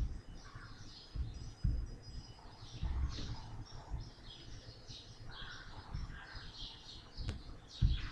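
Birds chirping repeatedly, a few short calls a second, with low dull thumps underneath and a single sharp click a little after seven seconds.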